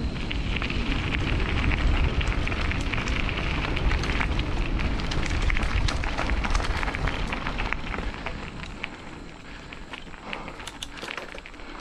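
Mountain bike riding over a rough dirt trail: tyre noise with many small clicks and rattles over a low rumble. It grows quieter about eight seconds in.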